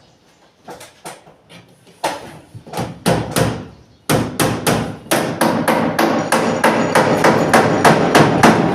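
Hammer driving nails into plywood ceiling boards: a few separate blows, then from about four seconds in a fast, steady run of about four strikes a second.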